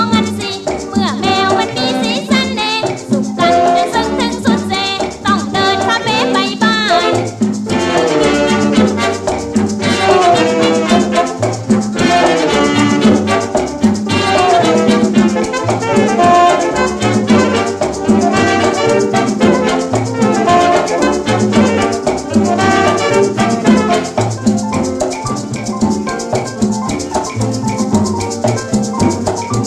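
Recorded Thai big-band pop song: a woman singing over band accompaniment, with shaken rattle percussion keeping the beat.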